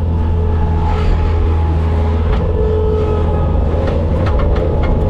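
Bobcat skid steer's diesel engine running steadily, with a steady higher whine over it and a few light clanks and knocks about four to five seconds in.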